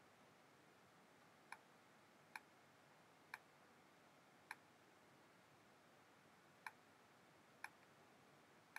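Seven sharp, single clicks of a computer mouse button, spaced irregularly about a second apart, as strokes are drawn on screen, over near-silent room tone.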